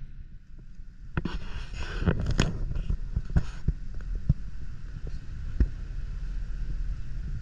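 Coach bus interior: a steady low engine and road rumble, with a brief hiss about a second in and scattered clicks and knocks through the rest.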